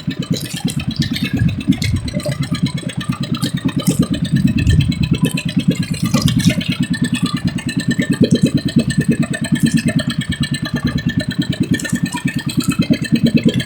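Pumpboat engine running under way with a rapid, even chugging beat.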